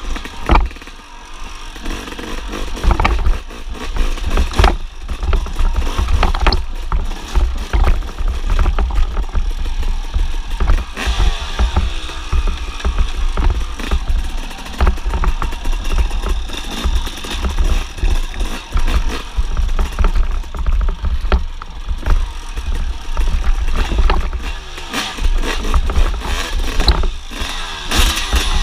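1999 Suzuki RM250 single-cylinder two-stroke dirt bike engine revving up and down as it is ridden over a rough trail, with frequent knocks and rattles from the bumpy ground.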